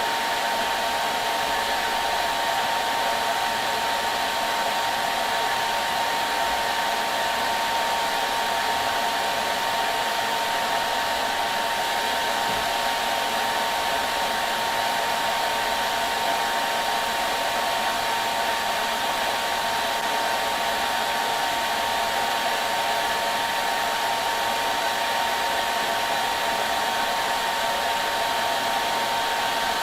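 Hair dryer running steadily, a constant rushing whoosh of air with a steady whine from the motor.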